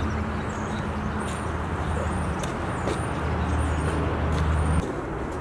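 A motor vehicle engine running with a steady low hum over street noise. The hum cuts off suddenly near the end.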